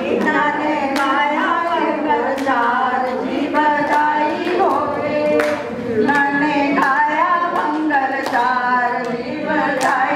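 A group of voices, women's among them, singing a song together in held, wavering notes, with sharp strikes here and there.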